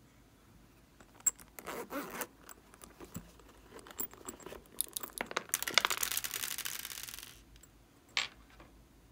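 Hands handling a hard pink plastic pig-shaped case: scattered clicks and taps, then a dense, rapid rasping rattle lasting about two seconds, and one more sharp click near the end.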